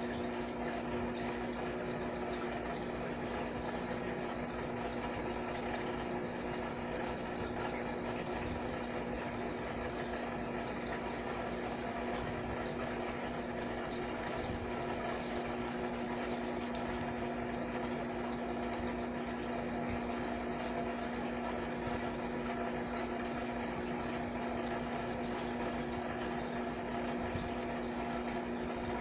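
Steady hum of a small water pump running, with a watery bubbling noise over it.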